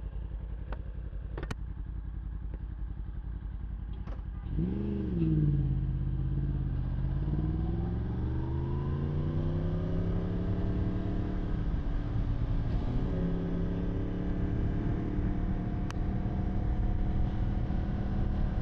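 Yamaha R1's inline-four engine idling, then given a quick rev about four seconds in and accelerating away, its pitch climbing for several seconds before an upshift near the middle and a steadier run afterwards, with wind and road noise on the helmet mic.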